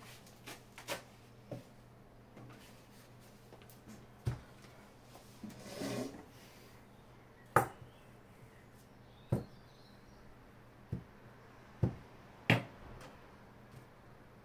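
Scattered light knocks and taps of objects being handled and set down on a tabletop, about one every second or two, with a brief paper rustle about six seconds in. A faint steady low hum runs underneath.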